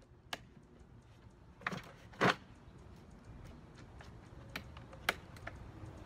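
Harbor Freight electric chipper shredder running with a low steady hum while branches are fed in, their wood snapping and cracking against the blade in irregular sharp cracks, the loudest about two seconds in.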